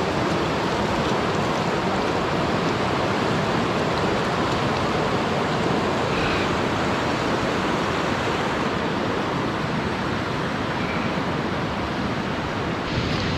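Fast-flowing, muddy river rushing past close by in a steady, unbroken wash of water noise.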